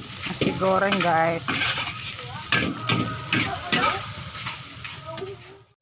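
Nasi goreng being stir-fried in a wok: a metal spatula scrapes and clatters against the pan over a steady sizzle. A short wavering tone comes about half a second in, and the sound cuts off abruptly just before the end.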